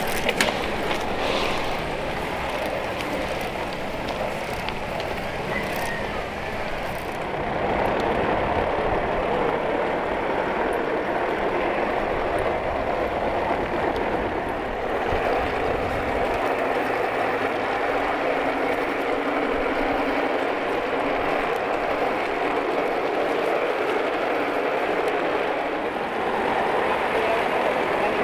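Steady rolling noise of a hand-pushed wooden rail trolley's wheels running on the steel rails, growing louder about seven seconds in.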